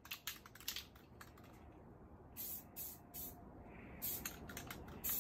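Aerosol spray paint can fired in a quick string of short bursts, several brief hisses a second, denser near the end. These are light taps of the nozzle rather than one continuous spray, the way to dust paint on thinly instead of drenching the weights.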